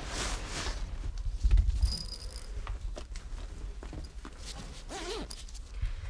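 Quiet rustling, rubbing and light knocks of things being handled, with a brief high-pitched beep about two seconds in.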